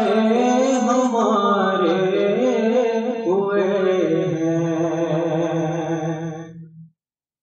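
A voice singing a naat, an Urdu devotional song, in long held notes that bend and waver. It fades out about six and a half seconds in, leaving silence.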